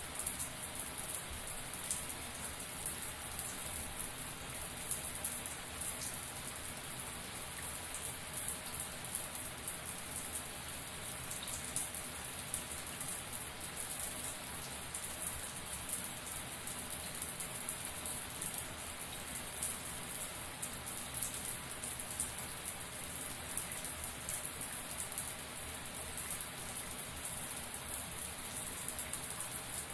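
Shower running: a steady hiss of water spray with dense, fine drop impacts.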